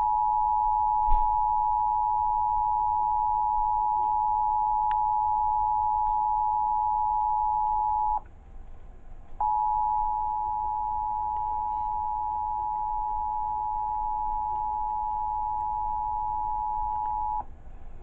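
Emergency Alert System attention signal, the steady two-tone 853 and 960 Hz alarm, played through a television speaker. It breaks off about eight seconds in, stops for just over a second, then sounds again for about eight more seconds, with a short click about a second in.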